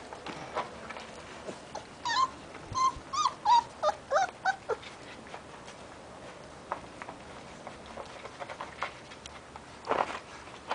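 Sarplaninac puppies about 25 days old whimpering and yelping: a quick run of about eight short high cries starting about two seconds in and lasting under three seconds. Scattered light clicks and scuffles follow.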